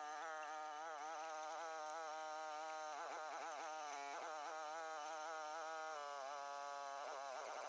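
Mini excavator's engine running under hydraulic load with a steady buzzing drone; its pitch wavers briefly a few seconds in and again near the end as the machine works.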